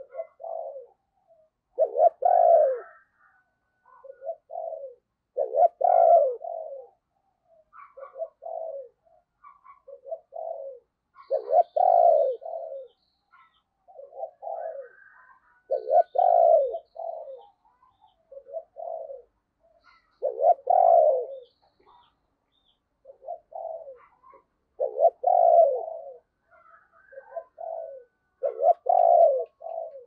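Spotted dove cooing in the deep 'sấm bầu' voice that keepers prize. It repeats its song every four to five seconds, each time a few short coos leading into a louder, longer one.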